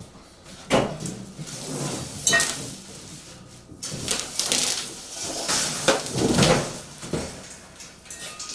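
Steel mesh carrier panels clanking and scraping as they are handled in their cardboard packing: sharp metal knocks about one and two seconds in, the second ringing briefly, then a few seconds of rattling and scraping.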